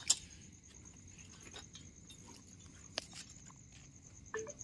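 Insects trilling steadily at a high pitch, with scattered light clicks and one sharp click about three seconds in.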